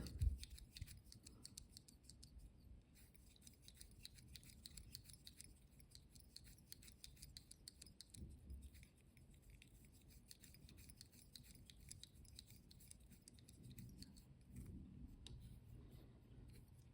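Faint ticking and scratching of fluo orange microfloss thread being wound from a bobbin around a fly hook to build the head of a streamer.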